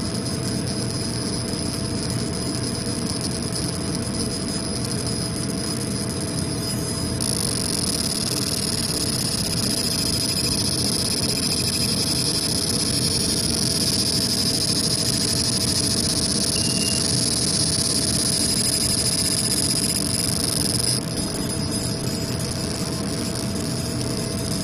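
Laser engraving machine running as it burns a design into a cork phone case: a steady machine hum with a high whine. The whine grows louder about seven seconds in and drops back about three seconds before the end.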